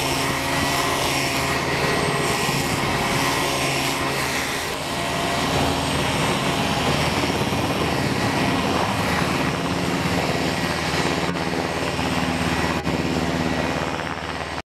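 Sikorsky UH-60M Black Hawk helicopter in a low hover, its twin turboshaft engines and main rotor running steadily: a continuous rotor beat with a thin, steady turbine whine on top.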